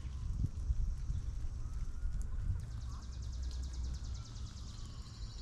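Outdoor ambience: a steady low rumble, with a fast, high, evenly pulsed trill coming in about halfway through.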